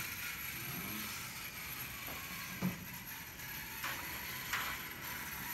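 Small electric RC car running around the track, its motor and gears giving a faint steady whir, with a few light clicks.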